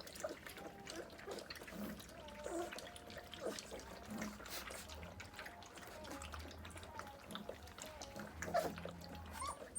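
Doberman puppies giving faint, short squeaks and whimpers among many small clicks.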